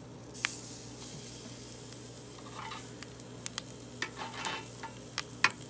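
Steak and eggplant slices sizzling on the hot grate of a charcoal kamado grill, with sharp clicks of metal tongs against the grate as the food is flipped; the loudest click comes near the end.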